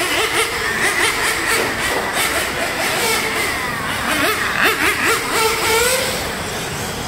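Several 1/8-scale nitro on-road RC cars, a Serpent 748 WC among them, racing round a track. Their small glow engines overlap, each rising and falling in pitch as it accelerates and brakes, busiest around four to six seconds in.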